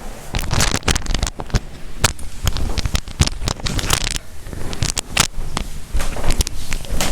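Irregular run of sharp cracks, clicks and knocks, many a second, from a hands-on chiropractic adjustment: joint cracks mixed with the handling of the patient on the treatment table.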